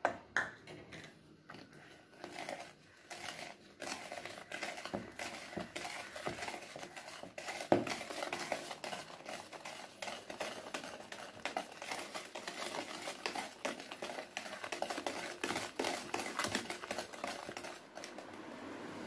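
Wire balloon whisk beating instant coffee, sugar and water by hand in a plastic bowl, its tines clicking and tapping rapidly and irregularly against the bowl; the strokes are sparse for the first few seconds, then fast and continuous. The mixture is being whipped into a thick foam.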